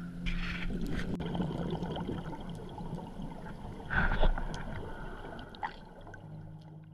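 Scuba diver's exhaled bubbles from the regulator, heard underwater as a muffled rumbling and bubbling with scattered crackles, a louder burst about four seconds in, fading away near the end.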